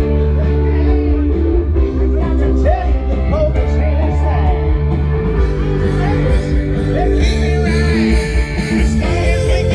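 Rock cover band playing live through a PA system, with a lead vocal singing over guitar, bass and drums.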